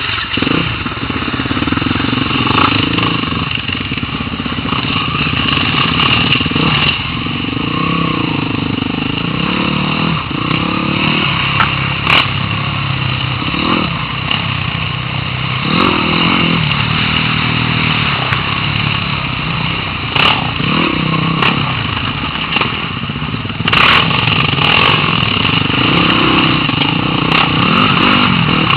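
Off-road dirt bike engines running close by as the bikes are ridden over a rough, rocky trail, the revs rising and falling, with a few sharp knocks along the way.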